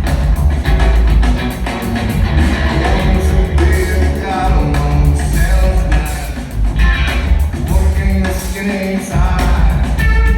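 A rock band playing live, with a singer's voice over heavy bass and drums.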